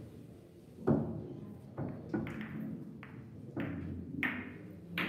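Billiard balls clacking together and knocking on the table as they are gathered up by hand: about seven sharp clicks at irregular intervals, each with a short ring, the loudest about a second in.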